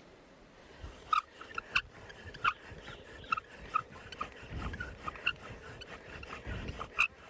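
Wooden bow drill working on a hearth board: a sharp squeak with each stroke of the bow, about two a second, starting about a second in. The strokes are steady, kept up to build an ember.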